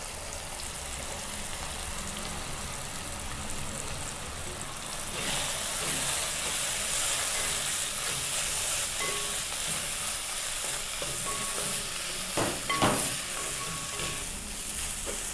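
Grated coconut sautéing in hot coconut oil in a pan with shallots, green chillies and tomato, stirred with a spoon: a steady sizzle, louder from about five seconds in, with a few knocks and scrapes of the spoon against the pan near the end.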